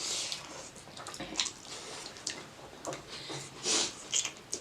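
Wet slurping and chewing of spicy cheese noodles: a run of short, irregular smacks and slurps, with a longer slurp near the start and another near the end.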